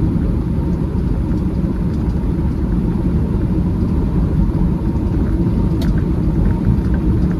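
Semi-truck driving down the highway, heard from inside the cab: a steady low rumble of engine and road noise, with a brief click about six seconds in.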